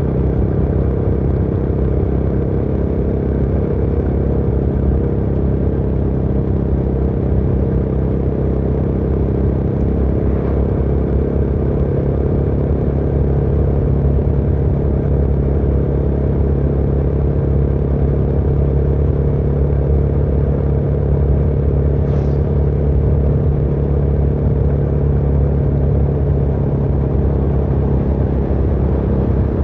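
Motorcycle engine running at steady revs while riding, its pitch holding level throughout.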